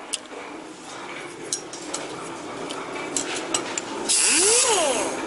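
Valve seat grinder spinning an abrasive stone against a valve seat of a VW 1.8T cylinder head: a brief light grinding hit about four seconds in, its motor whining up in pitch and then winding down. Light clicks and handling noises come before it.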